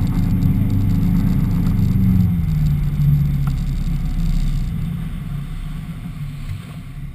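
Speedboat engine running at speed under tow, then throttled back about two seconds in: its low drone drops in pitch and grows gradually quieter as the boat slows.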